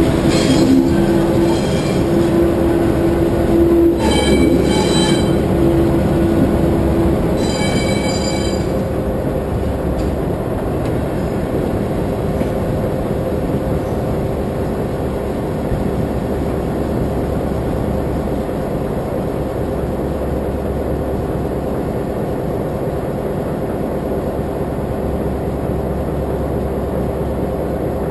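Freight train rolling slowly through a yard during shunting, with a steady rumble of wheels and running gear. A held tone sounds over the first seven seconds, and brief high-pitched wheel squeals come about four and eight seconds in.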